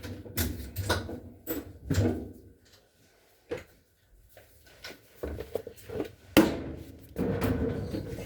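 Irregular knocks and clatter of dryer parts and panels being handled during a repair, with the sharpest knock about six seconds in and a busier run of clatter near the end.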